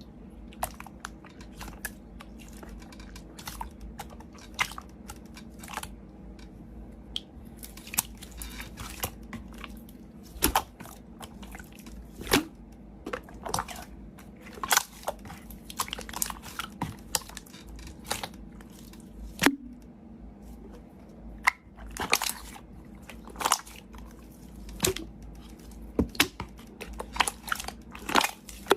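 Slime being squeezed and pressed by hand, giving irregular crackling clicks and pops. The pops grow denser and louder in the second half.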